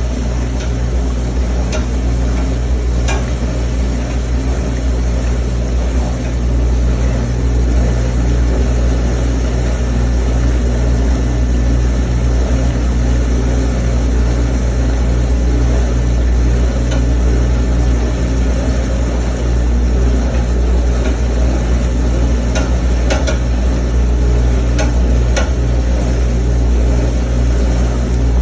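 Commercial dishwasher running: a steady motor hum under a hiss like spraying water, with a few faint clicks.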